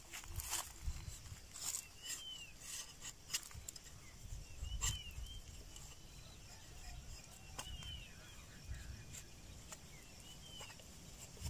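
A curved machete-like blade working strips of plant bark, giving irregular sharp clicks and scrapes, busiest in the first half. A bird calls a short rising-and-falling note about every two to three seconds.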